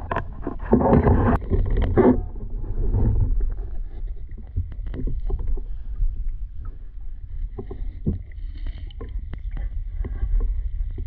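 Water sloshing and splashing over a steady low rumble, busiest in the first two seconds, with scattered short knocks after that.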